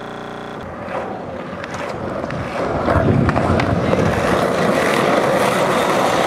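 Skateboard wheels rolling over rough asphalt, a steady rumble that grows louder about two and a half seconds in and stays loud. A short buzzing tone sounds at the very start.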